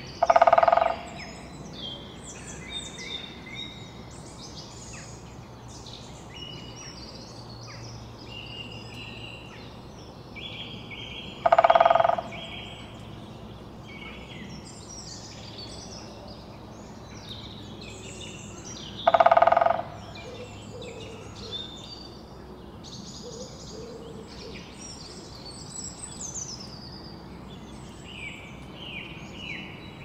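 Woodpecker drumming on wood: three rapid drum rolls, each about a second long, spaced several seconds apart, near the start, about eleven seconds in and about nineteen seconds in. Songbirds chirp and call throughout.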